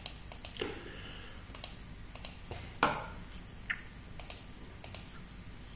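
Clicks of a computer mouse and keyboard as CAD software is worked: a dozen or so short, sharp clicks at uneven intervals.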